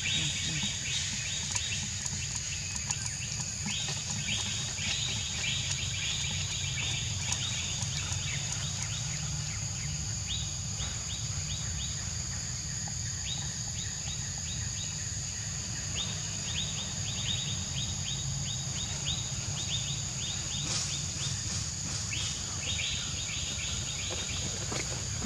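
Outdoor ambience: a steady high-pitched insect drone, with bursts of fast chirping trills every few seconds over a low rumble.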